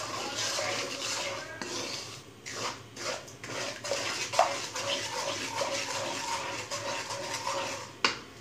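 Wooden spatula stirring and scraping semolina through hot ghee in a coated kadai, an uneven run of scrapes and knocks against the pan over a frying hiss as the suji starts to roast.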